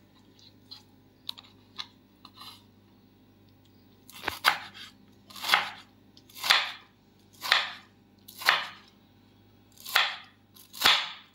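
Chef's knife slicing through a green tomato onto a wooden chopping board, one stroke about every second from about four seconds in, seven in all. Before that, a few faint light clicks.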